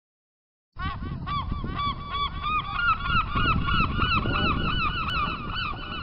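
A flock of geese honking, many short overlapping calls in quick succession, starting abruptly about a second in, over a low rumble.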